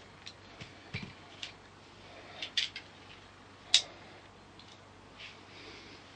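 Folding knives being handled, a dozen or so sharp clicks and taps with the loudest a little past the middle.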